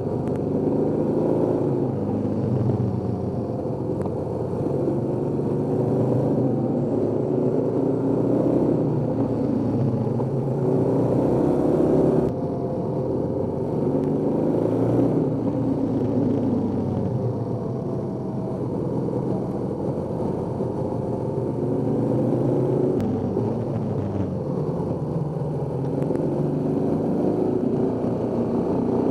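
BMW boxer-twin motorcycle engine running on the road, its revs rising and falling through a run of bends, with tyre and wind noise close to the rear wheel. The sound changes abruptly about twelve seconds in.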